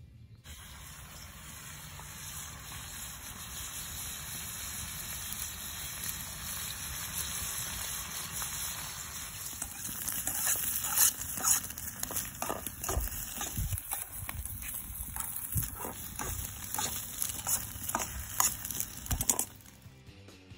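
Eggs sizzling in a pan over an open wood fire, a steady frying hiss with sharp pops and crackles from about halfway through. It cuts off suddenly shortly before the end.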